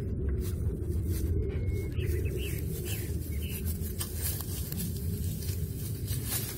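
A steady low rumble, with a few faint bird chirps around two to three seconds in and light scattered clicks.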